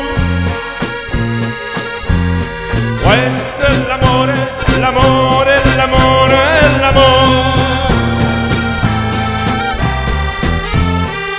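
Live accordion-led folk dance band playing an instrumental passage, with saxophone, trumpet, guitar, violin and drums over a steady bass beat. A rising swoop comes in about three seconds in.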